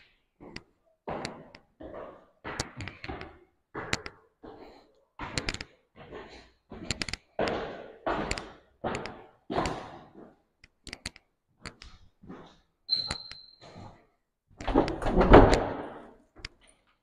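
Footsteps climbing a tiled staircase, a steady run of shoe treads on hard steps, then walking along the upstairs landing. Near the end comes a louder thump as a door is pushed open.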